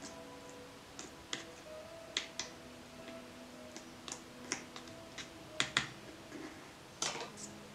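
Small metal spoon clicking and scraping against a plastic bowl while pieces of fish in a spice mix are stirred and scooped: light irregular clicks, the loudest a quick pair about two thirds of the way through, over soft background music.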